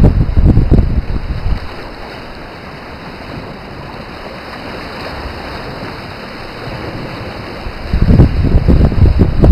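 Wind buffeting the microphone in loud, low gusts for the first second or so and again from about eight seconds in, with a steady hiss of sea surf in between.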